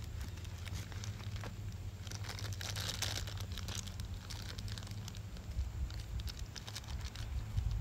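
Clear plastic blind-bag wrapper crinkling as it is handled, with a denser run of crinkling about three seconds in.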